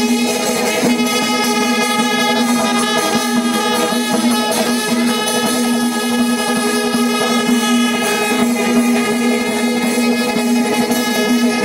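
Temple festival music: percussion with a steady, held pitched tone sounding through it.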